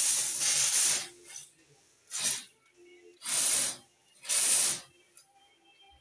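A ceiling-rail mosquito net being drawn and spread along its track, giving four hissing swishes of net fabric and sliding runners. The first swish lasts about a second and the other three are shorter.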